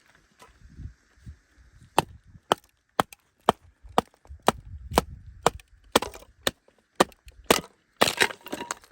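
A series of sharp wooden chops, about two a second, starting about two seconds in and running to near the end: something being chopped on wood.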